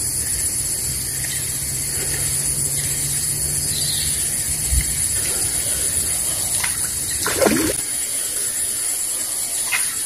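Surface splashes in a canal as a snakehead swirls at a soft frog lure being retrieved, the loudest about seven and a half seconds in and a smaller one near the end, over a steady high hiss.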